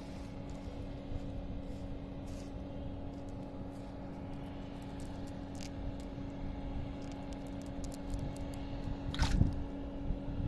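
Hands working a wet, weed-covered fishing net on mud: soft squishing and scraping with small clicks, and one louder brief crackle about nine seconds in. A steady low hum runs underneath.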